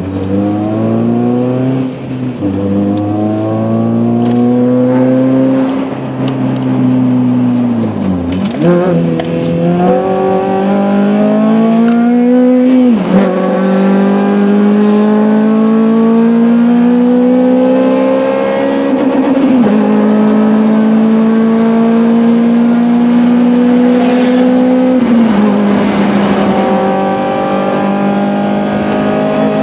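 Honda Civic Type R FN2's 2.0-litre four-cylinder with a Martelius aftermarket exhaust, heard from inside the cabin, accelerating through the gears. Its note climbs in pitch and falls back at each gear change, most clearly about 8 and 13 seconds in, then climbs more slowly with smaller dips later.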